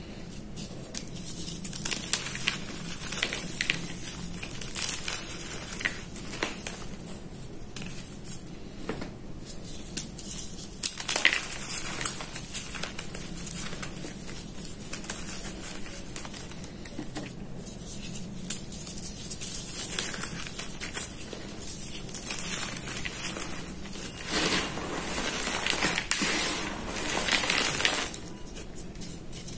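Soft reformed gym chalk crushed between the fingers in a bed of chalk powder: dry crumbling and crunching, with a dense run of small crackles and louder spells partway through and near the end.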